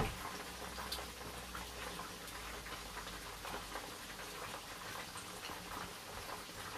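Faint scattered ticks and soft scraping from a small glass bowl being emptied of thick ketchup into a non-stick pan.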